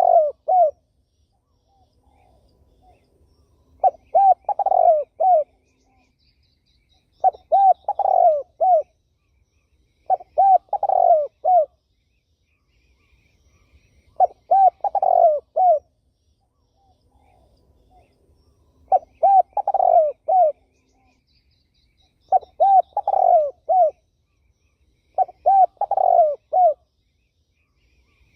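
Spotted dove cooing: a repeated phrase of several quick coos, given about every three to four seconds, with faint chirps of other birds between phrases.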